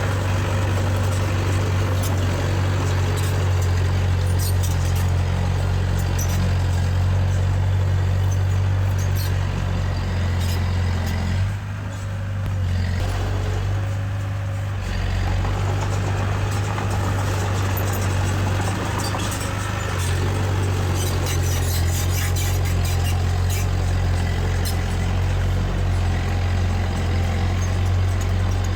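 Heavy diesel earthmoving machinery running steadily with a strong low drone. The engine eases off for a few seconds about twelve seconds in, then picks up again, with scattered clicks and rattles throughout.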